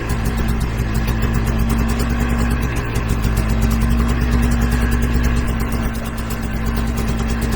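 Tractor engine running steadily with a constant low hum, easing off slightly about six seconds in.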